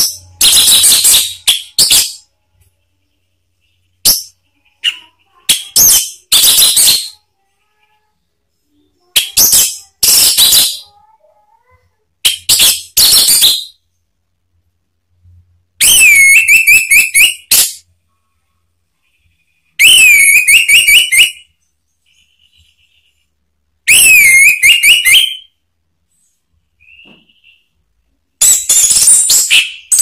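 Male orange-headed thrush singing loud, full song phrases in bursts of one to two seconds with short silences between them; several phrases are fast, wavering warbles.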